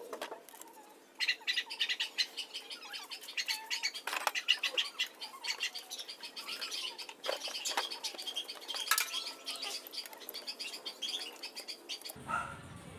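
Small birds chirping rapidly and continuously, with a few sharp metal clinks of tools and starter-motor parts on the bench.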